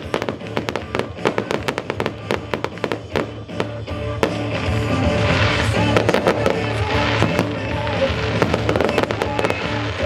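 Show fireworks firing in rapid succession: many sharp bangs a second for the first four seconds, then a louder hissing crackle takes over. Music plays along underneath.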